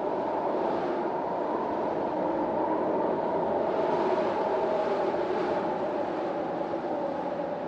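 Storm wind blowing steadily in a low rush, swelling a little in the middle and easing slightly near the end.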